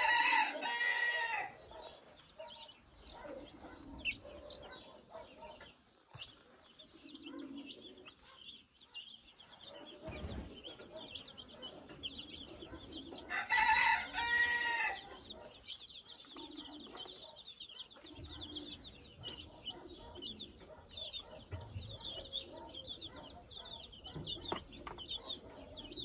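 Chicks peeping continuously in high, quick chirps while their broody hen clucks low among them. A rooster crows twice, once at the start and again about halfway through, and these crows are the loudest sounds.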